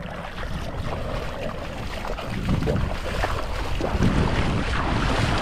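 Wind buffeting the microphone, over the splash and wash of shallow sea water around someone wading.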